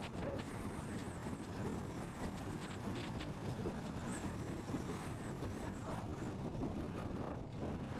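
Steady low road and engine rumble of a car driving, with scattered light ticks over it.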